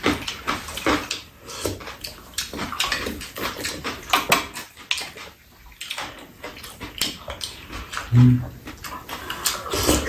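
Close-up mukbang eating sounds: rapid wet chewing, lip-smacking and slurping, a string of short sharp smacks, with a brief low hummed 'mm' from one of the eaters about eight seconds in.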